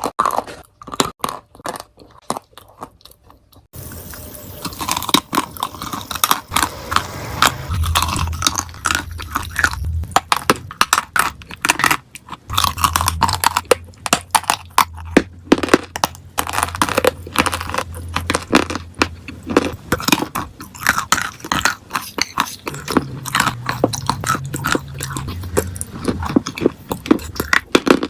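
Close-miked crunching and chewing of edible clay coated in paste, many sharp crisp cracks. It is sparse for the first few seconds, then turns dense and continuous, with a low hum underneath.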